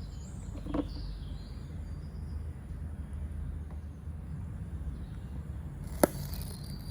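Faint birds chirping over a steady low hum, with a soft tap just under a second in and a sharp click about six seconds in.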